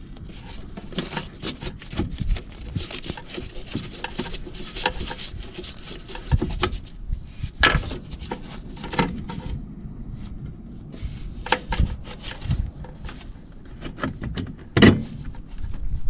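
Hands in nitrile gloves rubbing and scraping against plastic, wiring and sheet metal while working on the turn signal's wiring behind the fender. Irregular handling noise with a few sharp clicks and knocks, the loudest near the end.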